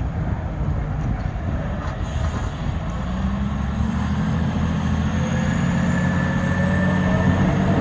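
Caterpillar 980B wheel loader's diesel engine running, its pitch climbing slowly and its sound growing a little louder from about three seconds in.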